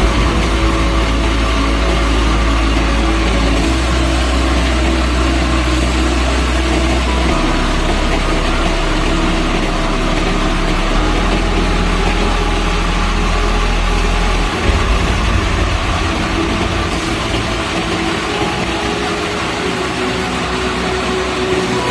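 Tractor-driven threshing machine running steadily with the tractor engine, threshing mustard plants as bundles of stalks are fed into the drum.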